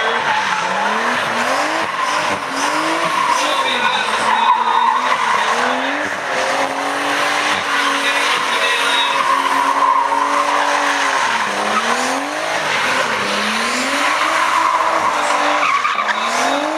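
Drift car doing donuts: its engine revs rise and fall over and over while the spinning, smoking rear tyres squeal without a break.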